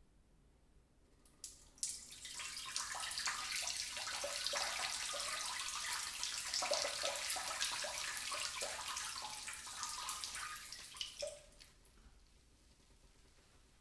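A person urinating in a bathroom. There are two short spurts about a second and a half in, then a steady splashing stream for about nine seconds, and a final spurt before it stops.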